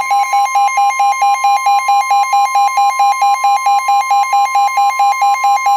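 NOAA Weather Radio alert tone sounding ahead of a severe thunderstorm warning: a loud steady single tone, with a rapid pulsed beep repeating about six times a second over it.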